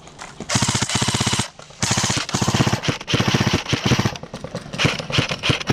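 Airsoft rifles firing on full auto: a short burst of rapid, evenly spaced shots, then a longer burst, then slower, irregular single shots near the end.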